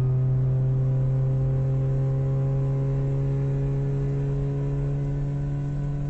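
Car engine running at a steady cruise, a low, even drone that slowly gets quieter.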